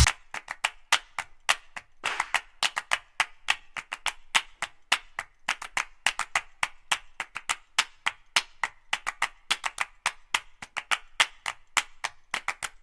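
Rapid dry wood-block-like clicks, about five a second and unevenly accented. They are the percussion of background music with its bass dropped out.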